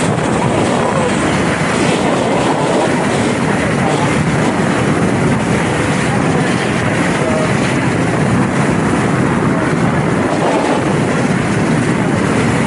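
Motorboat under way: a steady, loud engine and rushing water and wind noise, running evenly.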